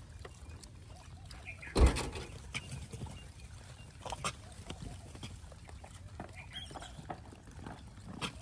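Troop of gray langurs feeding on bananas: scattered short calls and small clicks, with one sudden loud thump about two seconds in.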